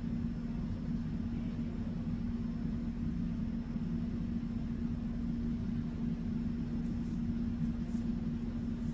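Steady low hum with one constant tone over a faint rumble, unchanging throughout: background machine or room noise.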